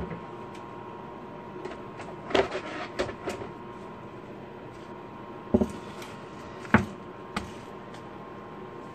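A plastic cutting board set down on a wooden table and a head of cabbage placed on it: several scattered knocks and clunks, the loudest about five and a half and nearly seven seconds in. Underneath runs the steady faint whine of an induction burner that is switched on.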